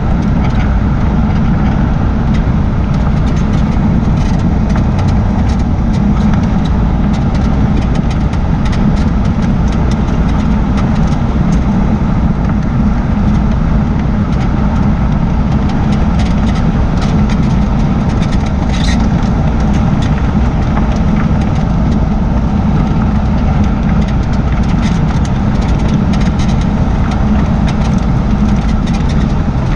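A 2004 Jaguar XJ6 (X350) rolling along with steady road and running noise, scattered faint ticks, and one short high squeak about two-thirds of the way through. This is the squeak and creak from the rear suspension that the owner suspects comes from a newly replaced rear air strut or a failing bushing.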